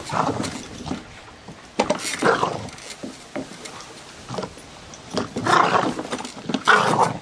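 A small terrier growling and snarling in loud bursts as it bites at a push lawnmower: near the start, about two seconds in, and twice near the end, with a few sharp clicks in between.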